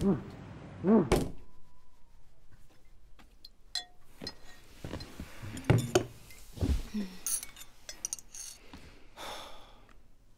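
Music cuts off about a second in, then quiet sound effects from an animated film: small clicks and clinks of bowls and crockery, a few thunks around six seconds in, and a soft rustle near the end.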